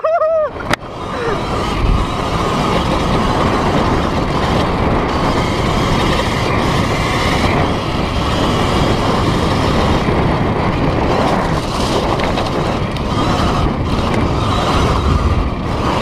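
Sur-Ron electric dirt bike climbing a steep gravel track: a steady rushing noise of tyres on loose stones and wind over the microphone. A short click comes just under a second in.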